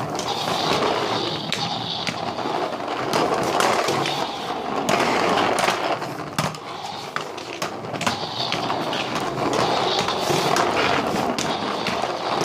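Plastic wheels of a Mattel Legacy Collection toy Jeep Wrangler rolling over a wooden floor, a continuous rumble with frequent small clicks and knocks of plastic being handled.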